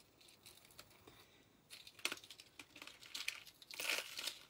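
Rustling and light clicks of costume jewelry being handled and picked up from the table, starting about a second and a half in and loudest near the end.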